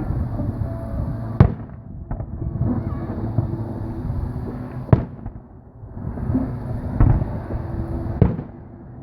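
Aerial fireworks bursting: several sharp bangs a second or two apart, over a continuous low rumble and crackle.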